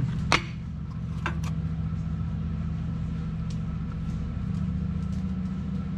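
A sharp metallic click as a magnetic angle locator is set onto a steel spring pad on the axle, with a lighter tap about a second later. A steady low machine hum runs underneath throughout.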